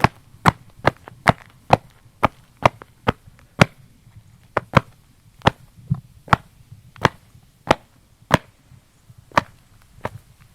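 A series of sharp knocks, about two a second at uneven spacing, with quiet between them.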